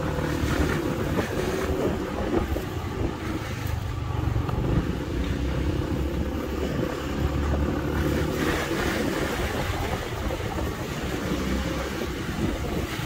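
Street traffic noise: a steady mix of passing vehicles on a busy city road.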